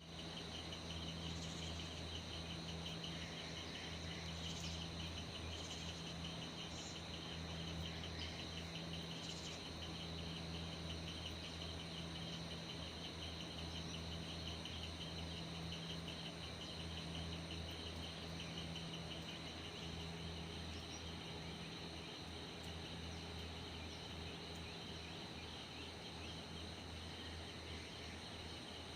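Steady, fast-pulsing chirring of insects such as crickets, with a few short bird chirps in the first ten seconds, over a low steady hum.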